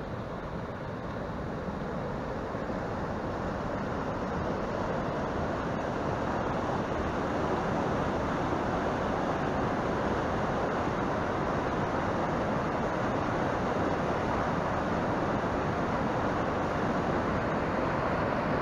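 Rushing mountain stream, whitewater pouring over boulders: a steady rush that grows louder over the first several seconds and then holds even.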